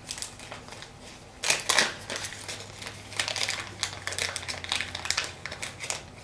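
Small clear plastic parts bag crinkling and rustling as it is handled and opened to take out a new reel bearing, with the loudest crinkles about a second and a half in.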